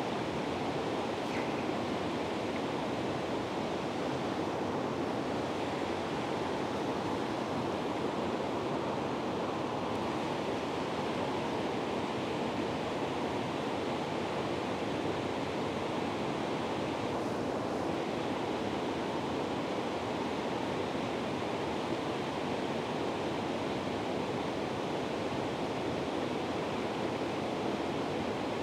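Steady rushing of flowing river water, an even, unbroken wash of noise with no distinct events.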